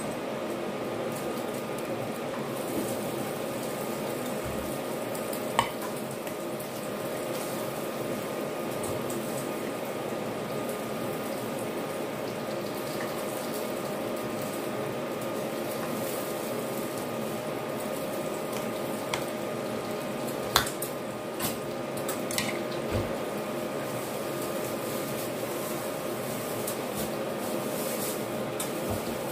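Metal spoon and fork scraping and clinking against a plate while eating, a few sharp clinks spread through, over a steady background hiss and hum.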